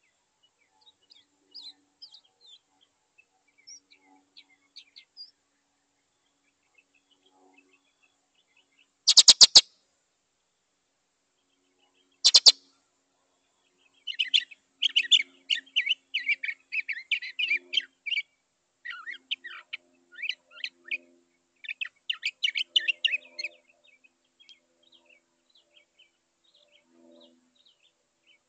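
Northern mockingbird singing a long run of quick, varied high phrases lasting about ten seconds. Before the song come faint scattered chirps and two loud, short harsh sounds about three seconds apart.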